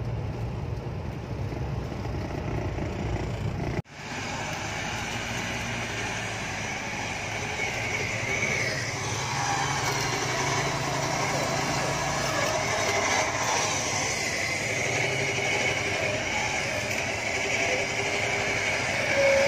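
Low rumble of a car driving, heard from inside its cabin, cut off abruptly about four seconds in. It is followed by off-road 4x4 vehicles' engines running outdoors.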